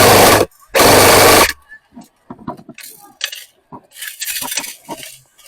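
Two loud bursts of rapid full-auto fire from an electric airsoft gun close to the microphone, each about a second long, the second stopping about a second and a half in. Scattered clicks and rattles of handled gear follow.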